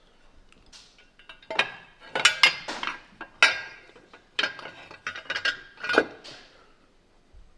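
Metal parts clinking and clanking with a short ring as the valve cover and gasket are fitted onto the motorcycle's cylinder head: a quiet first second or so, then a run of about a dozen sharp knocks, the loudest about two, three and a half and six seconds in.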